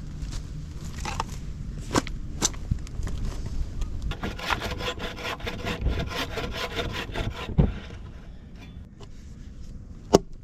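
Wood being hand-sawn: a quick run of rasping saw strokes from about four seconds in, with a few sharp wooden knocks before and after.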